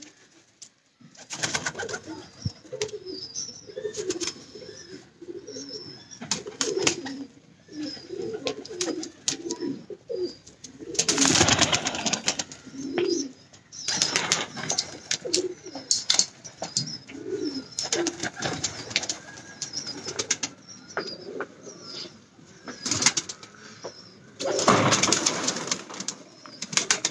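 Domestic high-flyer pigeons cooing over and over in a loft. Two louder rustling bursts come about halfway through and again near the end.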